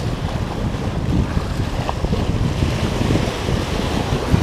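Sea waves washing and breaking over shoreline rocks, with wind buffeting the microphone in a steady low rumble; the hiss of a breaking wave swells near the end.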